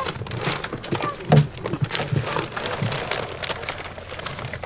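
Dry cat food kibble pattering and rattling into a dish as it is poured, a dense spray of small hard clicks, with a single dull thump about a second and a half in.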